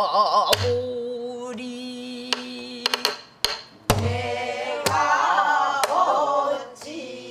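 A woman singing pansori in a wavering voice with long held notes, with a buk barrel drum struck a few times: low thumps about half a second in and again around four and five seconds, with sharper stick clicks between.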